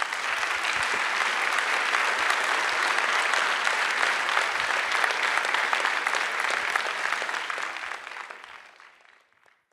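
Audience applause: a steady crowd clapping that fades out near the end.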